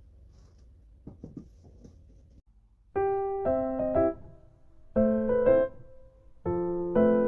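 Background piano music that comes in about three seconds in, playing chords in short phrases with brief dips between them. Before it, only faint low room tone with a few small clicks.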